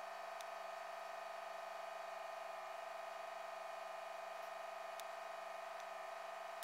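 A steady, even hum with many overtones that cuts in and out abruptly: the C63's V8 idling, heard from inside the car and sped up with the fast-forwarded footage.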